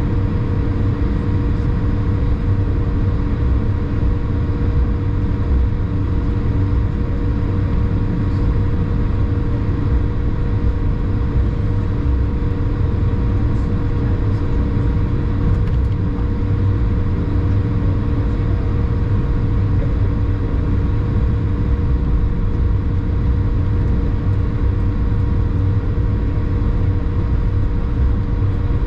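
Airbus A220 cabin noise heard from a seat over the wing: a steady deep rumble of airflow and its Pratt & Whitney PW1500G geared turbofan engines, with a few constant hum tones running through it.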